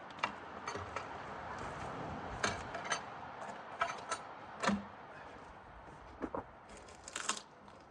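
Scattered metal clanks and knocks of a log being worked by hand on a Woodland Mills HM136MAX manual sawmill, the loudest knock about halfway, then a quick cluster of clicks near the end.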